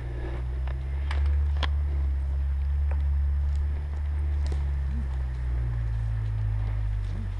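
Wind rumbling on a head-mounted camera's microphone, with a few faint clicks and snaps over it.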